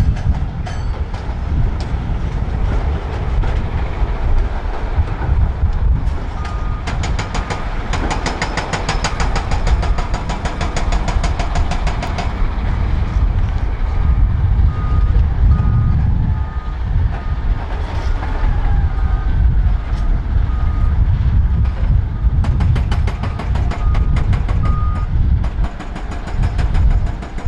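Volvo L350F wheel loader's heavy diesel engine running hard as it works and carries rock, with a reversing alarm beeping in regular pulses for stretches. A fast metallic rattling clatter joins it for several seconds near the first third.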